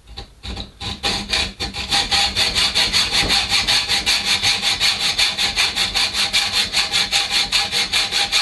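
Hacksaw cutting through 8 mm threaded rod clamped in a bench vise. A few uneven strokes start the cut, then the blade rasps back and forth on the metal in fast, even strokes.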